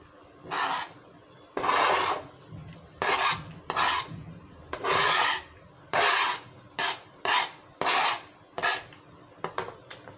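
Knife blade scraped repeatedly across a plastic cutting board, pushing finely chopped coriander off it into a bowl: about a dozen short rasping strokes with short pauses between them, coming quicker near the end.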